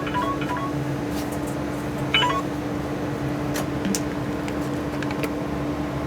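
Steady radio static hiss over a constant low hum, with a short chirp of tone about two seconds in, heard from a CB radio test setup during a sideband modulation check.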